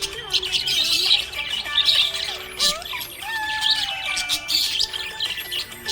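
Small pet parrots chirping and chattering in a rapid, busy stream of high chirps and short squeaks, with a few gliding whistles, over faint background music.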